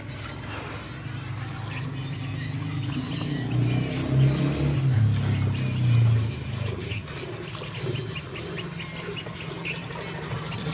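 A buffalo being milked by hand gives a long, low lowing call around the middle. Afterwards come short, quick squirts of milk into a steel pail.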